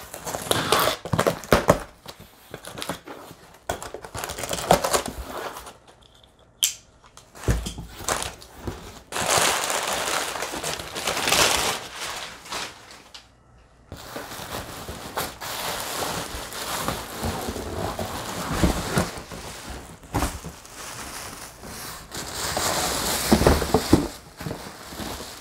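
Packing tape on a cardboard box slit with a box cutter and the box handled, then thin plastic bags rustling and crinkling at length as they are pulled out.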